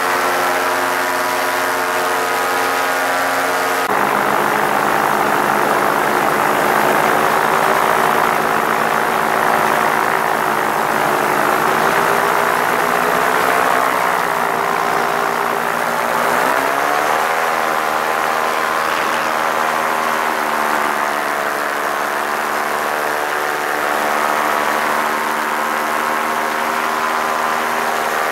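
Paramotor engine and propeller running steadily, with a noisy rush of air over it. Its note changes abruptly about four seconds in, and about two-thirds of the way through it rises in pitch as the throttle is opened to climb away from the runway.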